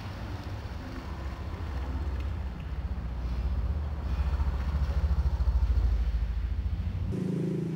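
Toyota Vios petrol engine running with an even low rumble that grows louder towards the middle. Near the end the rumble cuts off abruptly and a higher, steadier hum takes over.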